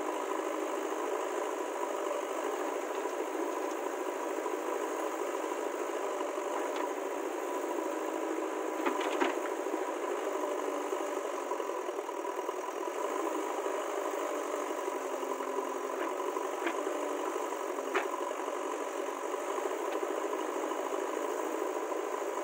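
Diesel engine of heavy earthmoving equipment running steadily, with a short cluster of sharp knocks about nine seconds in and one more near eighteen seconds.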